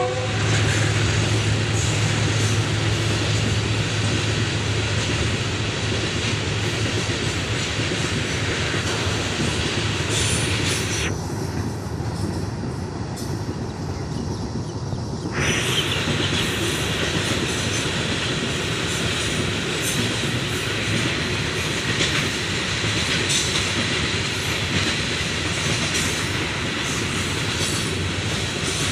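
Long freight train of open-top hopper wagons rolling past: a steady rumble of steel wheels on the rails, with scattered clacks as the wheels cross the rail joints.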